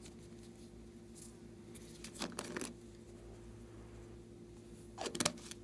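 Small plastic clicks and rattles from handling a glitter shaker bottle and its cap: two short bursts, one about two seconds in and one near the end, over a faint steady hum.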